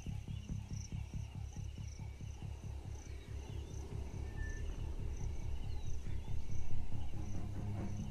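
High-pitched, pulsing chirps of night insects over a deep rhythmic throb, about five beats a second, that swells a little near the end.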